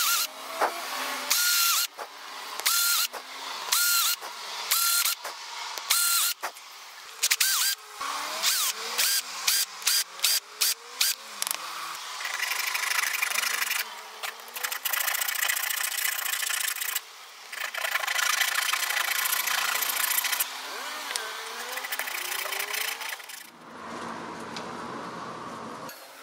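A small electric power tool, such as a drill or rotary tool, run in short bursts about once a second, its motor whine rising as it spins up each time. It then runs in longer stretches of a few seconds each.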